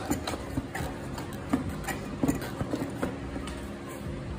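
Irregular light clicks and knocks of hands handling a Pulsar AS200's air-filter box and its metal lock clips while it is being unfastened.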